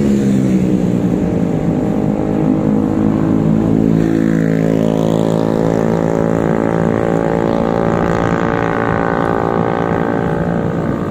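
A motor vehicle's engine running steadily close by, its pitch dipping slightly near the start and then drifting slowly.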